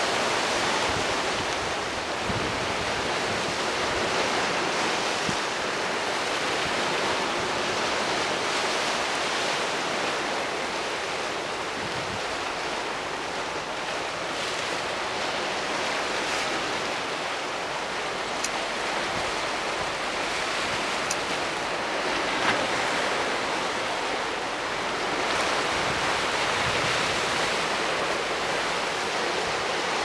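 Sea waves breaking over and around a rocky shore: a continuous rushing wash of surf and foam that swells and eases slowly.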